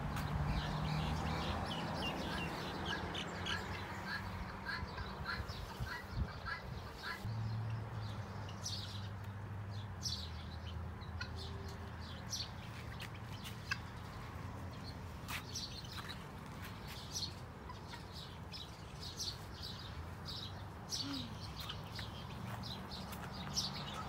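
A flock of domestic guineafowl calling, with short chirping notes repeated about three a second at first and scattered after, over a low steady hum.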